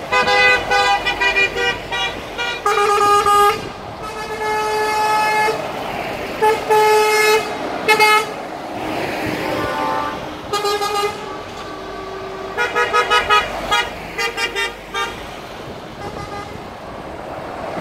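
Truck horns sounding again and again as a convoy drives past: bursts of short rapid toots, several longer blasts of about a second, and a quick pulsing run of toots after the middle, over the steady noise of the passing trucks.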